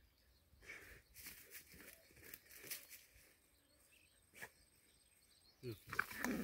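Faint, scattered rustling and scraping in dry leaf litter and soil as a stick is worked into a hole in the ground and dogs dig and sniff at it, with a single sharp click about four seconds in. Near the end a louder pitched, voice-like cry begins.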